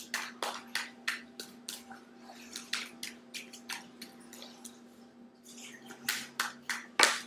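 A tarot deck being shuffled by hand: a run of quick card clicks and flicks, densest at the start and again near the end, with one sharper knock just before the end.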